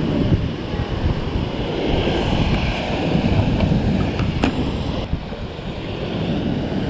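Wind buffeting the microphone over the wash of breaking surf, with one sharp click about four and a half seconds in.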